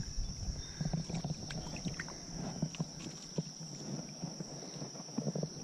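Creek-side ambience: low water movement around a wader, with scattered faint clicks and rustles as fly line is handled, over a thin, steady high-pitched whine.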